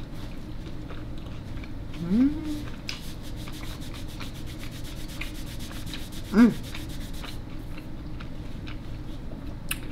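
A napkin rubbed over fingers as hands are wiped. It makes a fast, even scratching for about four seconds, from around three seconds in. There are two short hums from the eater, the louder one about six seconds in.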